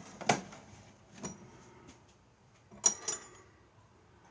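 A few sharp metallic clicks and clinks from the top drawer of an old Craftsman toolbox being opened and the wrenches in it being handled. The sharpest clink, with a short ring, comes about three seconds in.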